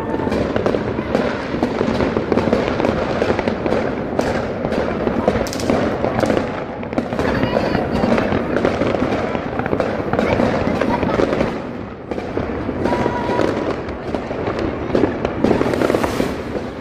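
Fireworks and firecrackers going off in rapid succession, a dense run of bangs and crackles with hardly a gap.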